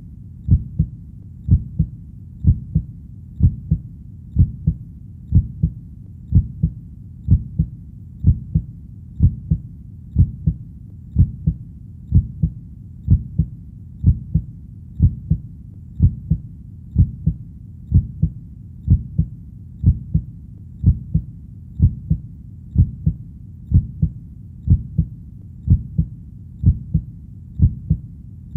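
Heartbeat: steady paired low thumps (lub-dub), about one beat a second, at an even rhythm.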